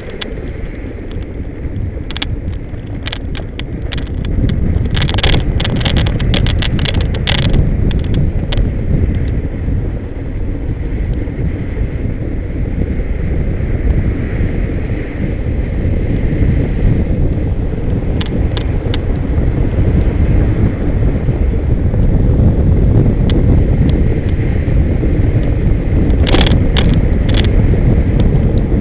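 Wind buffeting the microphone of a camera mounted low on a kite buggy running across a sand beach, heard as a loud, steady low rumble that grows louder a few seconds in. Clusters of sharp clicks and rattles come from the moving buggy a few seconds in and again near the end.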